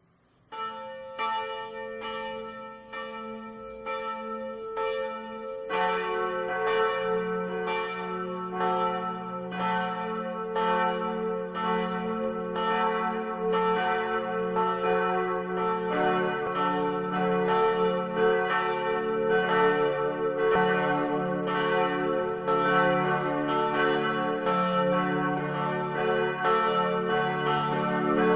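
Church bells ringing in quick, steady strokes, starting about half a second in. About six seconds in, a deeper bell joins and the peal grows louder.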